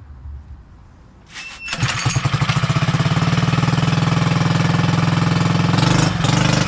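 Mini bike's 79cc single-cylinder four-stroke engine, fitted with an oversized GX200/Predator 212-type carburetor, pull-started about a second in. It catches at once and runs steadily with a fast, even beat, its note changing briefly near the end.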